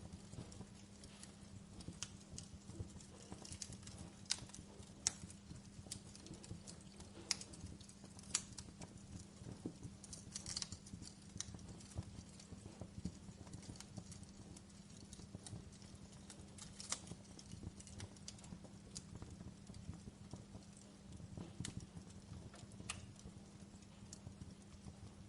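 Wood campfire crackling: irregular sharp pops and snaps from the burning wood over a low steady rumble of the flames, with a few louder snaps scattered through.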